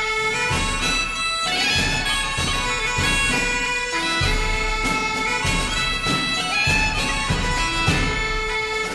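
Bagpipe tune as opening music, a melody moving from note to note over a steady low drone.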